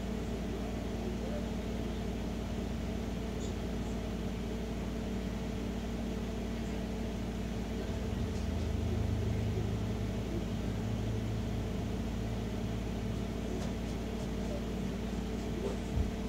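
Steady low hum, with a deeper rumble swelling briefly a little past halfway and a faint knock near the end.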